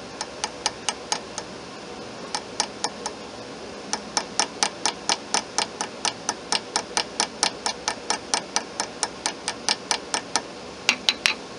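Small hammer with a 2.3-ounce head tapping a bent brass pin on a makeshift anvil to straighten it: light metallic taps about four a second, in short runs with brief pauses, then three sharper, louder taps near the end.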